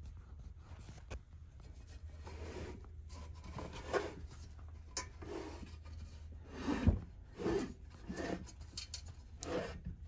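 Rubbing and rustling handling noises with scattered clicks, and a louder thump about seven seconds in, over a steady low hum.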